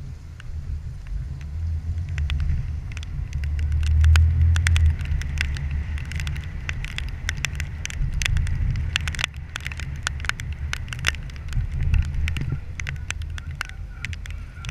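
Wind buffeting and road rumble on an action camera mounted on a moving 4x4 on a wet street, with many sharp clicks and crackles scattered through it, thickest in the middle.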